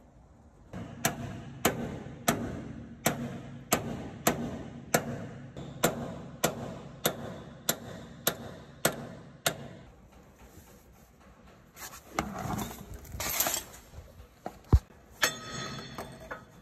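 Steady hammer blows on a metal pipe held over a gearbox shaft, about two a second, some seventeen strikes before they stop. A pause follows, then scraping, a single sharp click and a short metallic ringing near the end.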